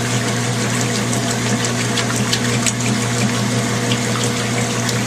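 Washing machine running with a steady motor or pump hum and a rushing of water, scattered with fine crackles.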